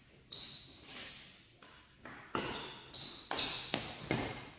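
Badminton rackets striking a shuttlecock in a fast rally: a string of sharp hits, roughly half a second to a second apart, each echoing in a large hall.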